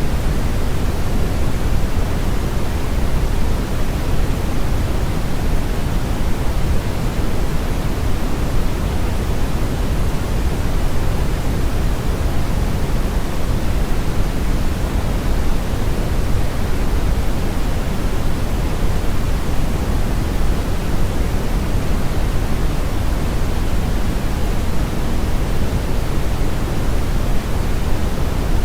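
Synthetic brown noise blended with white noise: a steady, unbroken hiss weighted toward the low end, with no changes or breaks.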